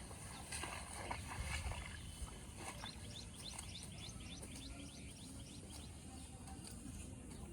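Outdoor ambience: small birds chirping over and over in short quick notes, over a steady high hiss. For the first two seconds there is some rustling or splashing.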